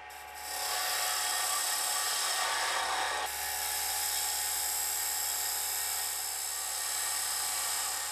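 Wood lathe turning a wooden box lid while a Robert Sorby Turnmaster box cutter shapes its end: a steady, high cutting hiss. It starts about half a second in and shifts slightly a little after three seconds.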